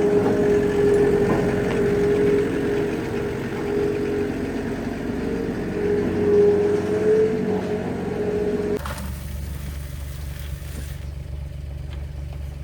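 An engine running steadily with a droning hum. About three-quarters of the way through it gives way abruptly to a lower, steady rumble.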